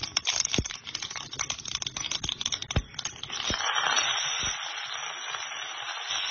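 Mustard and fenugreek seeds crackling and popping in hot sesame oil in a kadai. About three and a half seconds in, curry leaves drop into the oil and it breaks into a steady sizzle.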